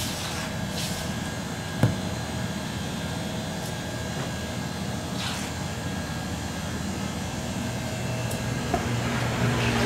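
Steady machine-like background noise, like fans or air conditioning running, with one sharp knock about two seconds in.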